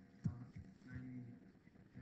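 A single sharp thump about a quarter second in, followed by faint, indistinct murmuring voices.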